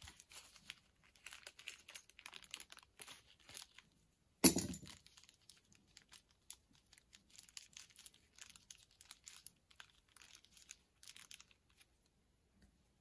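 Clear plastic parts bag from a carburetor rebuild kit crinkling in bursts as small parts are picked through inside it. A single sharp thump comes about four and a half seconds in.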